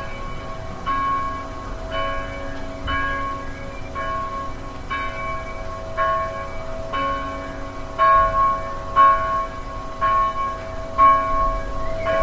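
Church bell tolling, struck about once a second, its ringing carrying over from one strike to the next. The strikes get louder in the second half.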